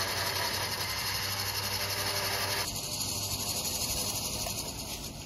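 Rough Country electric winch on a Jeep Gladiator running, reeling in its line through a pulley ring under a 2-to-1 pull, with a steady grinding motor and rope noise over a low hum. It eases off near the end.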